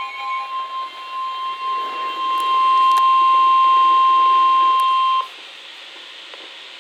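Emergency Alert System attention tone: one steady, loud, high-pitched beep that swells over the first couple of seconds, signalling an alert before the warning message. It cuts off suddenly about five seconds in, leaving a steady hiss of radio static.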